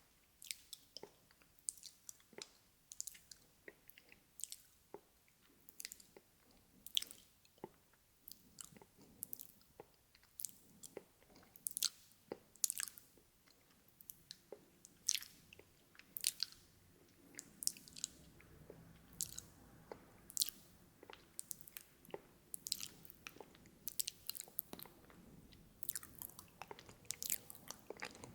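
Close-miked ASMR mouth sounds: wet clicks and smacks of the lips and tongue coming irregularly, one to three a second.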